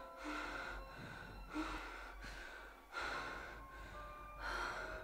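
A woman breathing heavily in four gasping breaths, about one every second and a half.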